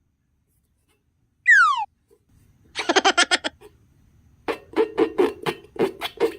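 A short falling whistle, a cartoon-style sound effect, then bursts of giggling laughter that start about a second later and run on rhythmically in the second half.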